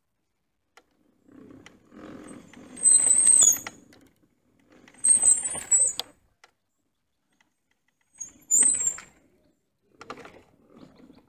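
Mobility scooter's electric drive and running gear whining and rattling in about four bursts as it is driven down a steep paved slope, three of the bursts with a high squeal on top.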